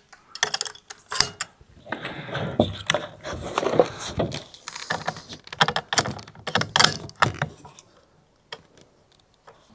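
Clicks and metallic rattles of a Savage Mark II bolt-action .22 rifle being handled at the bench, with rustling in between. The clicks stop about eight seconds in.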